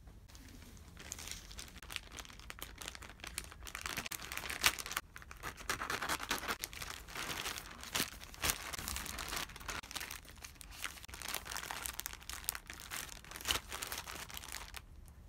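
Thin plastic packaging crinkling and crackling as a plastic mailer bag and plastic-wrapped packs of face masks are handled, with many sharp snaps. It starts about a second in and eases off near the end.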